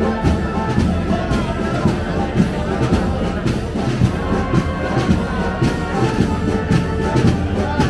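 Procession brass band playing a march, with trumpets and trombones carrying the melody over a steady drum beat.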